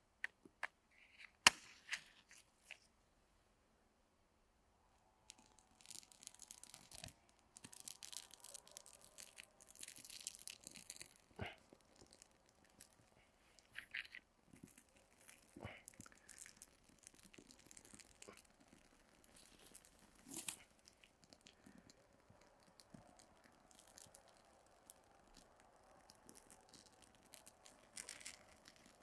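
A match struck against its box with a sharp click, then faint irregular crackling as burning birch bark and dry twigs catch fire.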